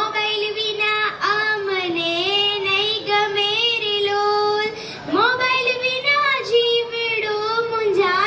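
A child singing into a microphone: a single melodic line with long held, gliding notes, pausing briefly about five seconds in before carrying on.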